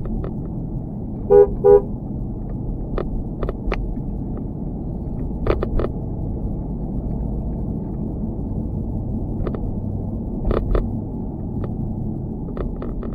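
Two short vehicle-horn toots about a second and a half in, over a steady low rumble of a moving vehicle. Scattered clicks and rattles run throughout, from a loose GoPro mount.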